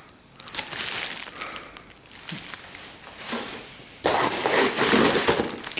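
Clear plastic bag and paper packing being handled, rustling and crinkling. The crinkling turns suddenly louder about four seconds in.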